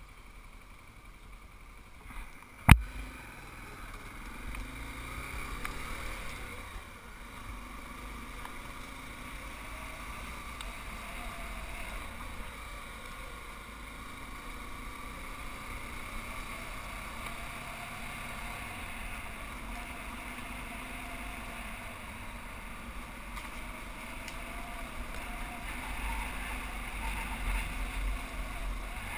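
Motorcycle engine running steadily while riding a rough dirt trail, its pitch wavering with the throttle over low rumble. There is one sharp knock about three seconds in.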